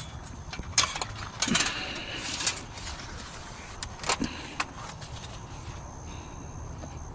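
Pieces of scrap metal being handled and moved: a few sharp clanks and knocks, with a short scraping rasp between the second and third.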